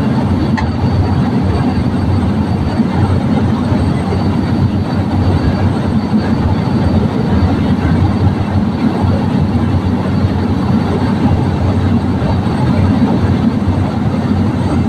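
Steady loud drone of a high-wing light aircraft's engine and propeller, heard from inside the cabin in flight.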